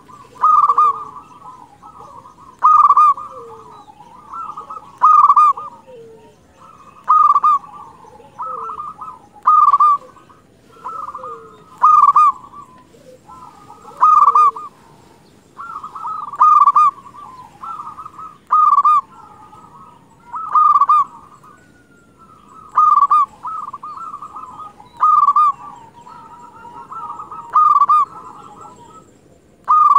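Zebra dove (perkutut) singing, repeating its rhythmic cooing phrase about every two seconds, each phrase peaking in a loud coo.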